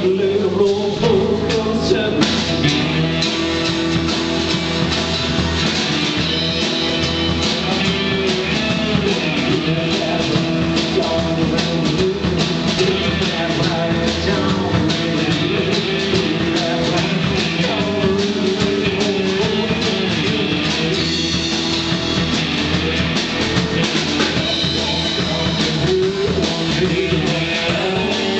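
Live rock band playing a song: a drum kit, electric guitars and a strummed acoustic guitar, with a male lead vocal.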